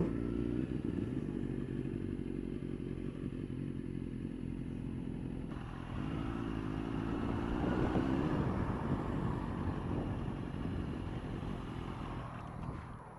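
Motorcycle engine running on the move, its note rising as it accelerates about a second in and again from about six to eight seconds in.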